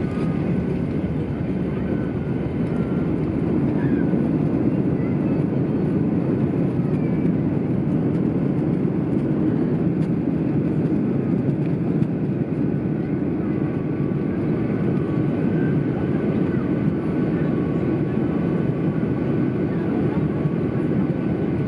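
Boeing 737-800 airliner heard from inside the passenger cabin: a steady, even roar of jet engines and airflow.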